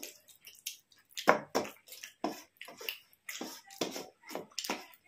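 Close-up wet eating sounds: a quick, irregular run of short smacks and clicks, about two or three a second, from eating rice and fish curry.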